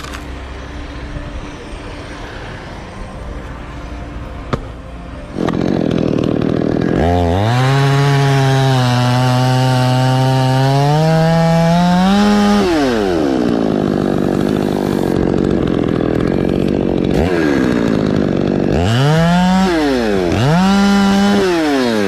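Petrol chainsaw revving up and cutting into a coconut palm trunk for about five seconds, its pitch climbing as the cut finishes, then falling back to idle. Near the end it is blipped up twice.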